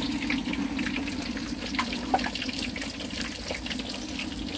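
Water running steadily, with a few faint clicks and knocks.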